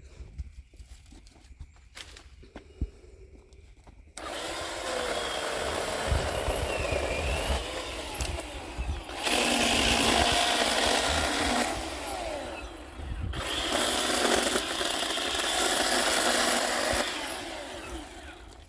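Ryobi 18V One+ 12-inch brushless cordless chainsaw starting up about four seconds in and running while it cuts fallen timber, louder in two stretches as the chain bites into the wood. A few faint clicks and knocks come before it starts.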